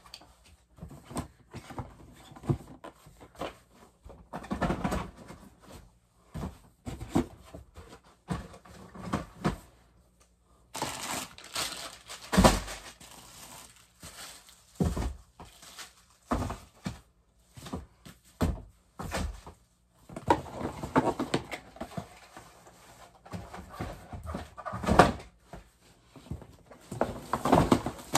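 Household items being handled and packed back into a cardboard box: irregular knocks and thunks with rustling, busiest from about eleven seconds in and again in the last third.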